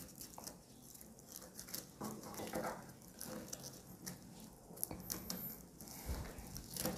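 Faint scratchy rustling and small clicks of a three-strand twisted rope being handled, its strands tucked under and pulled tight through the lay while splicing. A dull low thump about six seconds in.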